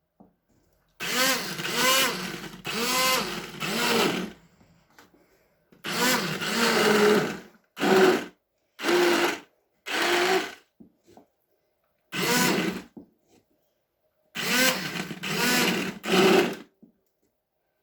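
Electric blender run in about eight short pulses of a second or two each, its motor pitch rising and falling as it spins up and down, puréeing lentil dahl only partly so it stays chunky.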